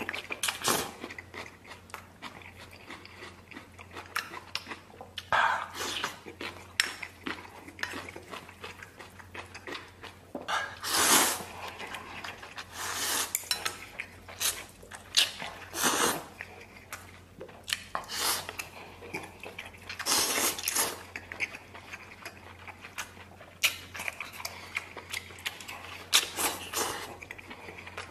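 Instant noodles being slurped in bursts every few seconds, with chewing in between and chopsticks clicking against a stainless steel bowl.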